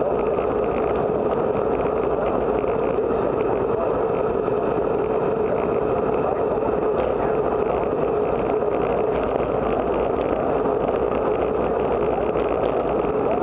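Steady wind rush over the microphone of a camera on a moving road bicycle, a constant noise that does not let up.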